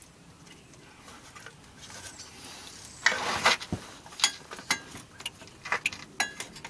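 Metal hand tools being handled: a short rustle about three seconds in, then a string of separate sharp metallic clicks and clinks, some ringing briefly.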